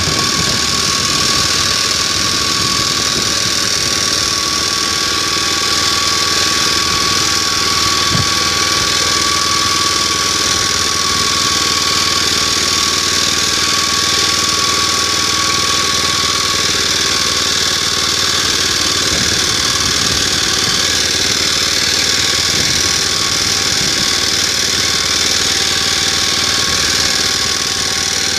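Motor Sich walk-behind tractor's engine running steadily under load in second gear, pulling a disc hiller through potato rows, with a steady high whine over the engine noise.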